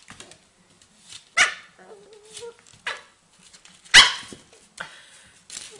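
A puppy giving several short, sharp barks, the loudest about four seconds in, as it worries at a lemon.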